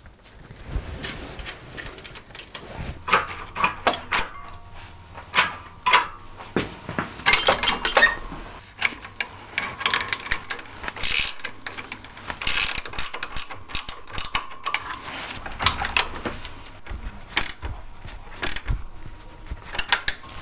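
Ratcheting wrench clicking in quick runs, with steel chain links, bolt and washers clinking irregularly, as a bolt is tightened through the end link of an engine-hoist chain onto the engine's lifting bracket.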